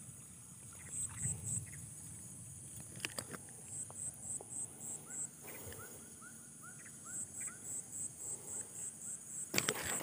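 Evening field ambience of insects chirping: a high-pitched pulsed chirp in short runs of about three pulses a second, alongside runs of a lower, rising chirp. Rustling and crackling of grass near the end.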